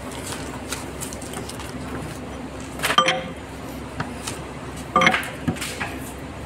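Two ringing metal clanks about two seconds apart, from a steel tool striking the steel core chuck on the shaft of a large paper reel, over a steady machine hum.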